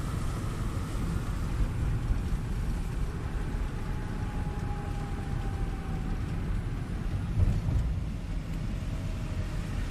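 Steady rumble of road traffic, with a faint long tone partway through.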